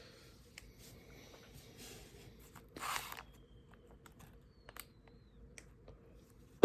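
Quiet handling of a cardboard trading-card box and its foil-wrapped card packs: scattered light taps and clicks, with a brief rustle about three seconds in.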